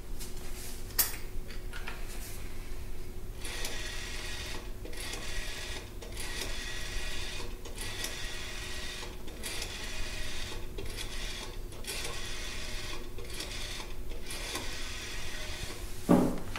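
A machine running in a steady rhythm of rasping strokes, a little over one a second with short breaks between them, over a steady low hum. A click comes about a second in, and a dull thump near the end.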